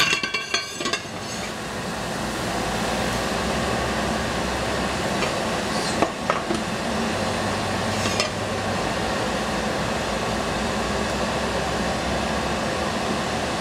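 Steady rushing noise of a gas stove burner turned up to a high flame, swelling after a brief dip at the start. A pot clanks onto the grate in the first second, and a couple of light knocks come later.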